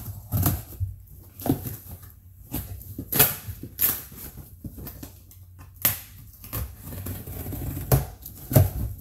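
Cardboard shipping box being opened by hand, with an irregular run of sharp clicks, scrapes and tearing as the tape and flaps are worked loose.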